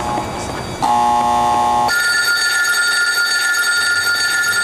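A pulsing two-note alarm tone sounds once. Then, about two seconds in, a telephone starts ringing with a steady high tone that carries on.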